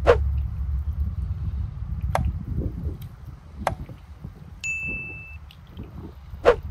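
Subscribe-button sound effects: sharp ringing clicks, the first and last the loudest, and a bell-like ding held for under a second about two-thirds of the way through, over a low steady rumble.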